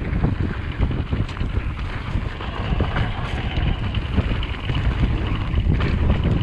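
Wind buffeting the microphone: an uneven, gusty low rumble with a hiss over it.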